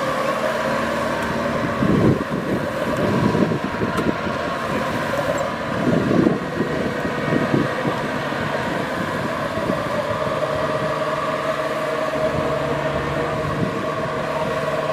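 Kubota DC-70 Plus rice combine harvester running steadily with a constant engine hum, with rougher surges about two seconds in and again around six to seven seconds in.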